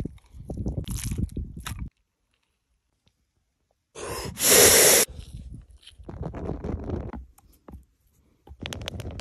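Snow crunching as it is rubbed onto raw beef. After a pause, a short, loud rush of air at the hole of a burning Swedish log stove, then a few light knocks near the end.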